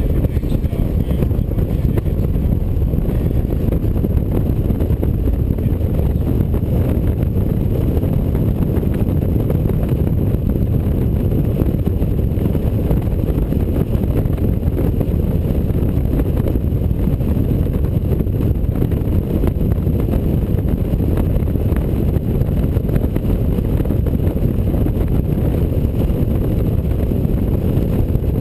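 Touring motorcycle riding at road speed: a steady low rumble of wind rushing past the camera's microphone, mixed with engine and road noise.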